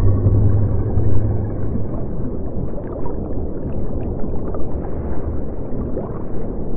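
Underwater ambience sound effect: a muffled, continuous low rumble of water. A deep hum fades out in the first second and a half, and faint short bubble-like pops come through later on.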